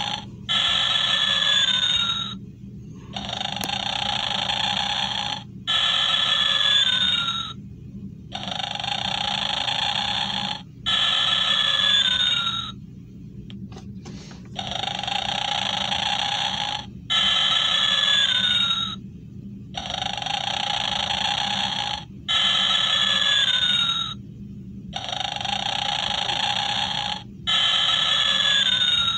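Gemmy animated snoring Santa playing its recorded snoring, loud: a snore alternating with a breath out that carries a falling whistle, each sound about two seconds long with short pauses between, the cycle repeating roughly every five seconds.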